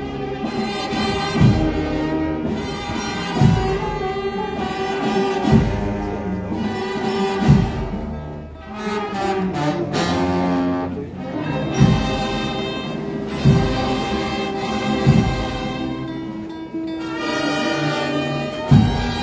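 Procession brass band playing a slow march: sustained brass chords over a bass drum struck about every two seconds, the drum dropping out for a few seconds in the middle.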